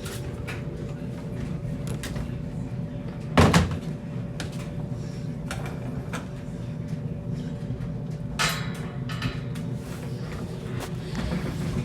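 Knocks, clicks and rattles of equipment being handled, with one loud knock about three and a half seconds in and a short clatter around eight and a half seconds, over a steady low hum.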